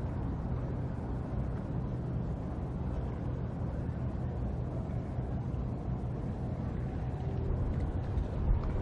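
Steady low drone of a coastal cement carrier's engine as the ship passes across the harbour.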